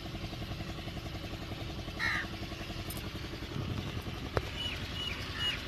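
Massey Ferguson 265 tractor's diesel engine idling steadily with an even, fast pulse. A sharp click comes about four seconds in, and a few faint high chirps near the end.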